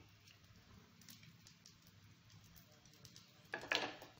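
Oil sizzling faintly with small crackling ticks under a stuffed paratha on a hot tawa. About three and a half seconds in there is a brief, louder burst of noise.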